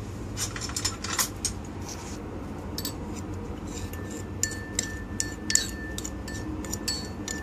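A metal spoon stirring a thin cornstarch sauce in a ceramic bowl and clinking against its sides. The clinks are scattered at first, then come quickly and ring from about three and a half seconds in.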